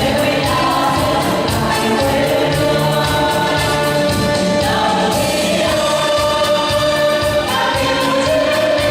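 A choir singing a march with held notes, over instrumental accompaniment with a steady beat.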